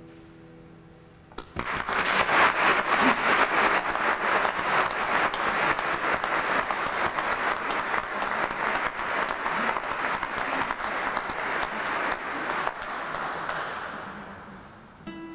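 The last note of a classical guitar fades away. About a second and a half in, an audience breaks into applause, which dies away gradually near the end.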